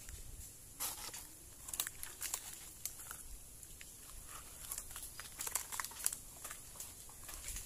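Dry leaves and twigs crackling and snapping underfoot, with branches brushing past, as someone pushes through brush. The crunches come irregularly, several a second.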